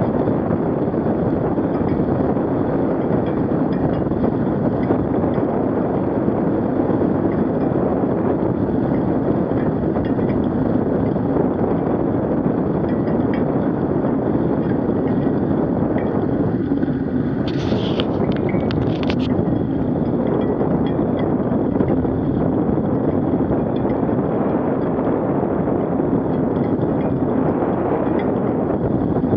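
Steady wind rush on the microphone together with the rolling rumble of a bicycle tyre on a wet, slushy road while riding. A brief higher hiss breaks in about two-thirds of the way through.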